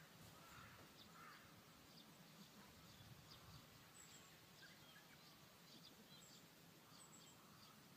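Near silence: quiet open-air ambience with faint, scattered bird chirps.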